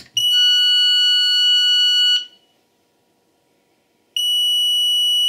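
A click, then the 6th Sense International intruder alarm panel's exit tone: a steady high-pitched beep lasting about two seconds, repeated after a two-second gap. The beeping means the exit delay is running before the alarm arms itself.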